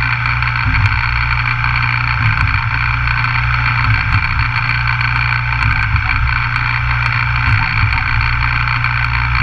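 CNC milling machine running a cut: a steady low hum and a steady high whine, with small scattered ticks throughout.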